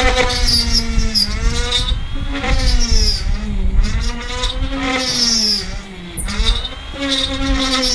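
Cordless Dremel rotary tool cutting into a fibreglass boat hull. Its high motor whine sags in pitch each time the bit bites under load, then climbs back, with a gritty grinding over it. The cutting is slow going.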